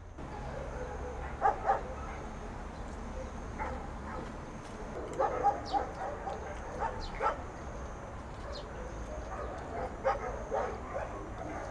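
Dog barking and yipping in short bursts, in several clusters spread through the stretch.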